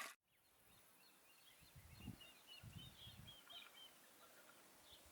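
Near silence with faint bird chirps, a quick run of short chirps in the middle, and a few soft low thuds.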